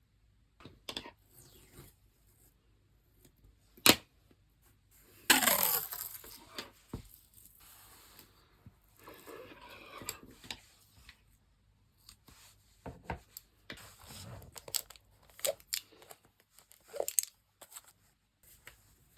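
Handling sounds at an artist's desk: scattered clicks and taps, with one loud tearing sound lasting about a second, about five seconds in.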